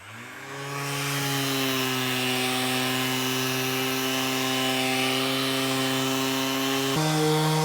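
Electric oscillating sander with 300-grit paper starting up and running steadily on epoxy-coated wood. Its pitch steps up suddenly near the end.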